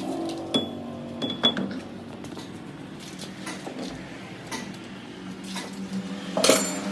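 A few sharp metallic clinks and knocks of tools or metal parts being handled, over a steady low hum; the loudest knock comes near the end.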